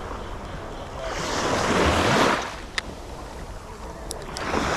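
Small waves breaking and washing up the sandy shore, one swelling in about a second in and another near the end, with some wind on the microphone. A sharp click midway and a few light clicks near the end come from the spinning reel being handled.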